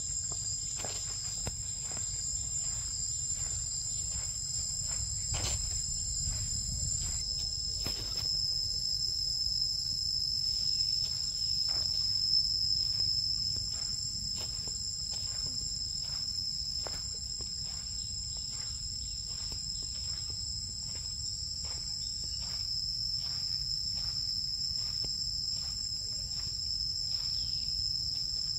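Steady high-pitched drone of an insect chorus, two tones held without a break, over footsteps on a sandy path at a walking pace and a low rumble.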